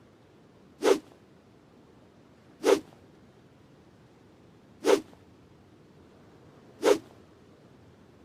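A longsword swung through the air four times, each swing a short, sharp swish, about two seconds apart.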